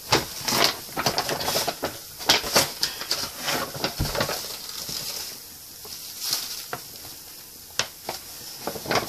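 Paper baking soda package crinkling and rustling as the powder is tipped out of it into a clay volcano's crater, with many small crackles throughout.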